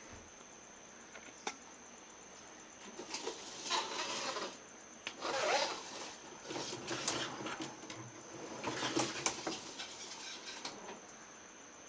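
Bouts of rubbing and scraping as parts inside a dishwasher are handled, each lasting a second or two, after a single faint click.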